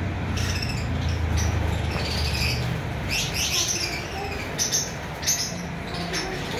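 Blue Fischer's lovebirds giving short, high chirps and squeaks, scattered through, over a low rumble that fades out about halfway through.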